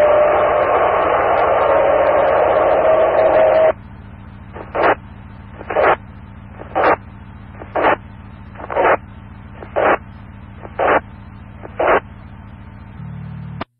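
Radio scanner on a fire dispatch channel with no voice: loud hissing static from an open channel that cuts off about four seconds in. Then come eight short bursts of static about one second apart, and a brief low hum before the channel drops out.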